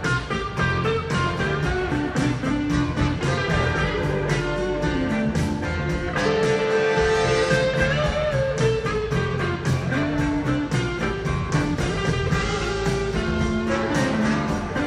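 Live blues-rock band playing, with an electric guitar taking the lead; its held notes bend in pitch about halfway through.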